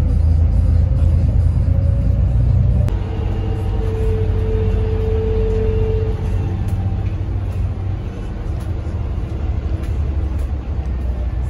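Steady low rumble of a moving coach's engine and tyres heard from inside the passenger cabin. It is a little louder in the first three seconds, then drops slightly.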